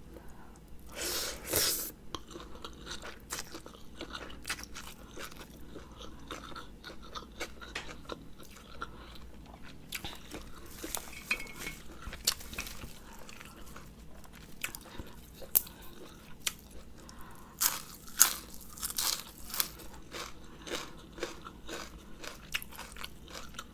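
Close-up mouth sounds of eating a spicy Thai rice-noodle salad with fresh parsley: irregular crisp crunches and biting amid steady chewing. Louder bursts of crunching come about a second or two in and again near the end.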